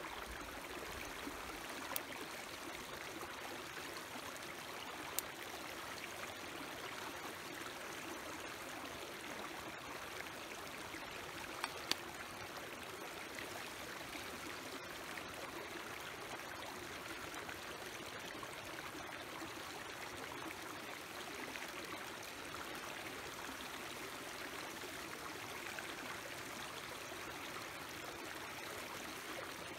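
A shallow rocky mountain stream running steadily over stones, with a few short sharp clicks, once about 2 seconds in, once about 5 seconds in and twice close together about 12 seconds in.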